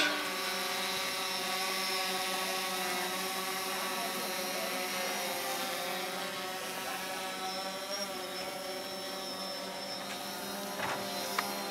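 Boat engine idling steadily, an even mechanical hum.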